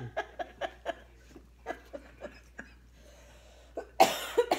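A woman laughing in quick repeated pulses that die away over the first second or so, then a loud cough about four seconds in.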